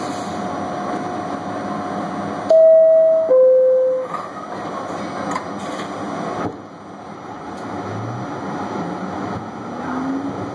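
R68A subway train's horn sounded in two short blasts, the first higher and the second lower, over the steady rumble of the car on the rails. Later the Westinghouse DC traction motors whine, rising in pitch as the train picks up speed.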